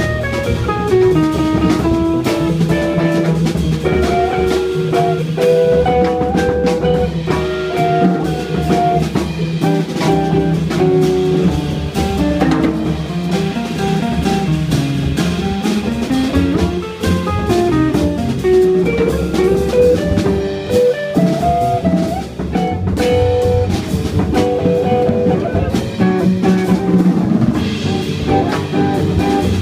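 Live jazz trio playing: an electric archtop guitar runs melodic lines over upright bass and a drum kit with cymbals, without a break.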